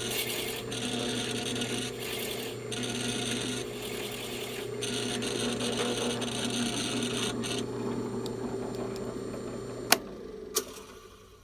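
A drill motor runs steadily while a counterbore cutter grinds into the wooden stock in repeated spells. About three-quarters of the way through the cutting stops and the motor hums on alone. Two sharp clicks come near the end, and then the sound falls away.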